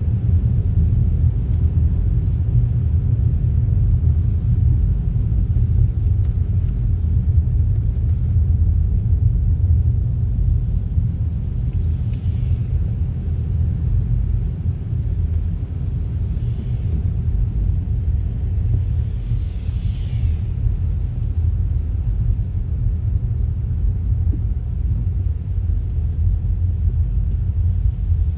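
Car driving on a snowy road: a steady low rumble of tyre and engine noise, with a faint short swish now and then.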